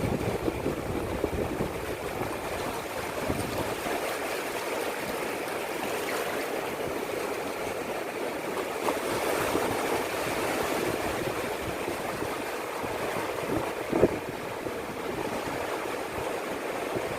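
Sea waves washing on a beach: a steady rush of surf and churning water, with one short sharp sound near the end.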